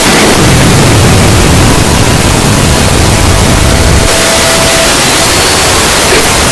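Very loud, heavily distorted static-like noise: an earrape sound effect overdriven to full scale, with a heavier low rumble that thins out about four seconds in.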